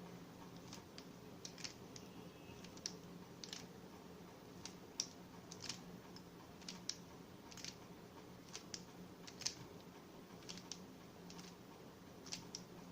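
Faint, irregular plastic clicks of a Rubik's cube's layers being turned by hand, about one or two a second, as the corner-twisting algorithm is worked through.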